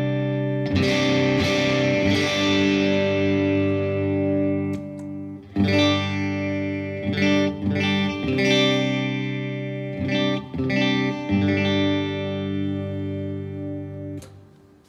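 Electric guitar, a Telecaster-style Maybach Teleman, played through a small valve combo amp and pedals. Slightly overdriven chords are strummed and left to ring, with a new chord every second or so, and they fade out near the end.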